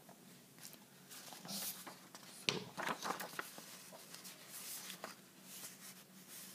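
Sheets of paper rustling and sliding as a loose-leaf sheet is laid over a written page. Soft scrapes and rustles come in a run, with a sharp tap about two and a half seconds in.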